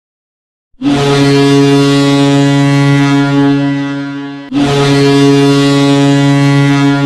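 SKA Saint Petersburg's arena goal horn: two long, loud, steady blasts on one low pitch. The first starts about a second in, and the second follows immediately after a short break.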